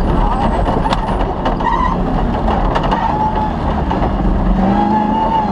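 Off-road rally car driving hard over rough ground. The engine runs loud and steady, its pitch rising a little near the end, over a constant rumble and rattle of the car, with a few sharp knocks.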